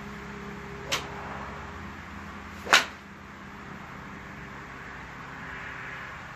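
Two sharp golf shots, a club face striking the ball, about two seconds apart; the second is the louder crack.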